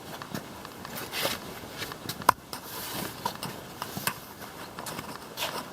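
Light footsteps and handling knocks, with one sharp click a little over two seconds in.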